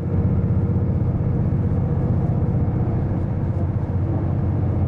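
Steady low rumble of a road vehicle's engine and tyres, heard from inside the cabin while driving at speed, with a faint engine hum running through it.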